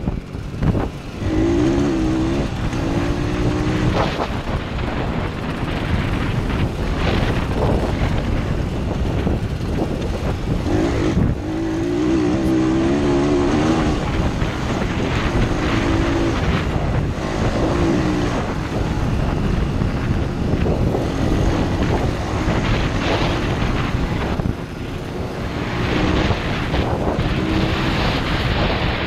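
Single-cylinder four-stroke engine of a 125cc YCF pit bike running under way, its revs rising and falling repeatedly as the rider accelerates and shifts, with wind buffeting the helmet-mounted microphone.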